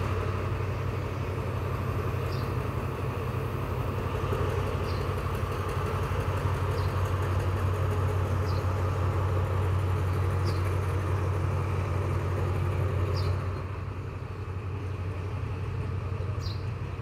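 Alsthom diesel-electric locomotive 4101 running light, its diesel engine giving a steady low drone as it moves away along the tracks; the sound drops somewhat about 13 seconds in.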